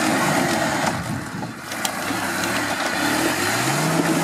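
Off-road 4x4's engine running at low revs over rough ground, rising in pitch near the end as the driver revs it up.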